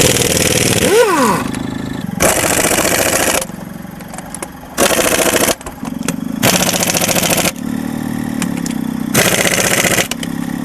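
Pneumatic air tool fed from a vehicle's onboard air system, run in five short bursts of about a second each over the steady hum of the running engine and compressor.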